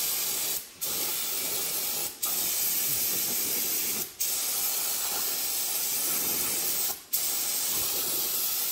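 Aerosol spray can hissing as cleaner is blasted into the inside of a manual transmission's bellhousing to clean off old grease. It sprays in long bursts with four brief breaks as the nozzle is let go.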